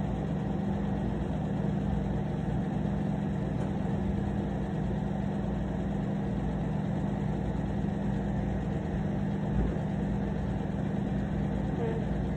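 Steady low machine hum with a constant drone, unchanging throughout.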